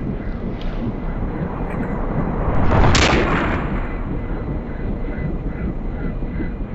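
Movie-style handgun shot sound effect: a single sharp crack about three seconds in that swells into a long, slowly fading rumble, over a steady low rumble.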